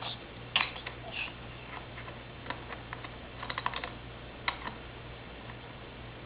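Irregular light clicks and taps of a child's toy bolts and screwdriver being worked into a toy truck, with a quick run of clicks a little past the middle.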